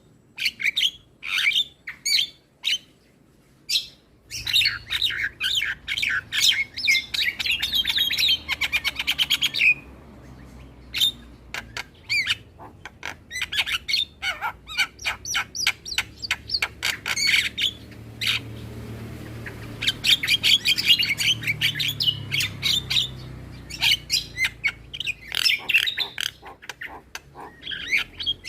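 Javan mynas chattering: a busy string of harsh squawks and quick chirping notes, with a fast rattling run partway through and a brief lull after it.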